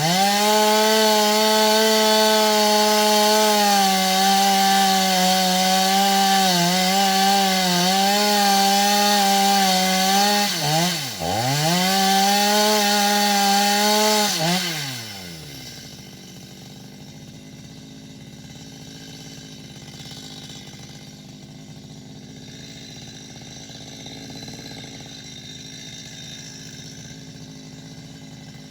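Two-stroke chainsaw running at full throttle as it cuts wood, its pitch dipping sharply once about eleven seconds in and recovering. About fifteen seconds in the throttle is released, the engine note falls away, and the saw runs on much more quietly at idle.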